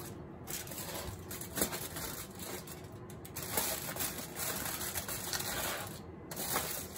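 Aluminium foil crinkling and rustling in short, irregular bursts as hands press and shape it into pouches.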